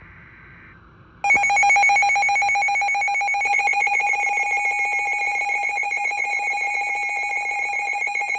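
A brief faint tone, then about a second in a weather alert radio's built-in alarm starts: a loud, harsh, rapidly pulsing buzz that signals an incoming National Weather Service warning.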